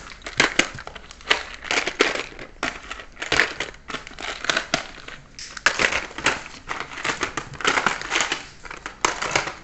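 Clear plastic bags crinkling and small hard plastic cases clicking against each other as a hand rummages through a cardboard box of packed items, in a string of irregular rustles and clicks.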